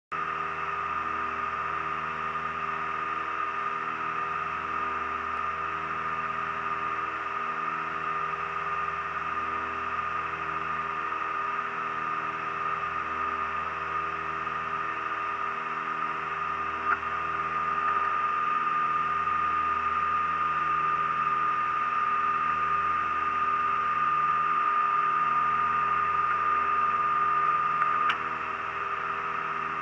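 The twin turbocharged six-cylinder Lycoming engines and propellers of a Piper Turbo Aztec droning steadily in flight, heard inside the cockpit, with a steady whine over the drone and a slow throb every few seconds from the two engines beating against each other. The sound grows a little louder about halfway through and eases back near the end, each change marked by a faint click.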